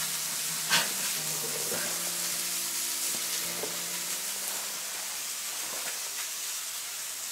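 Steady sizzling hiss of smashed venison burger patties frying on a hot grill plate, with one soft click about a second in.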